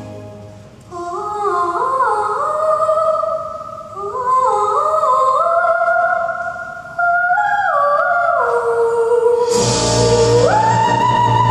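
A young girl singing a solo soprano cadenza, a run of stepped notes rising and falling with almost nothing under the voice. Near the end the accompaniment comes back in under a long held high note.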